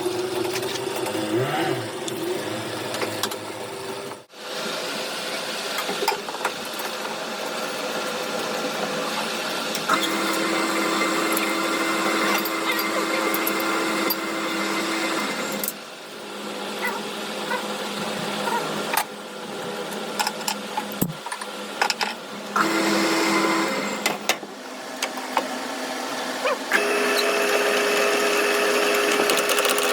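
Electric workshop machinery running with a steady motor hum, in a series of short segments that change abruptly, with scattered clicks and knocks of metalwork.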